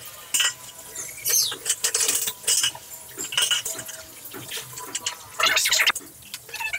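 Light-gauge steel C-channel clinking, knocking and scraping against a wall as it is handled and pressed into place: irregular short metallic knocks and rattles.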